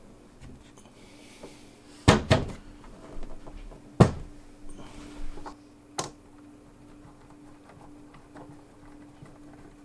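A clock being handled on a hard surface as it is taken apart: two sharp knocks about two seconds in, another about four seconds in and a last one near six seconds, with small clicks and rattles between them.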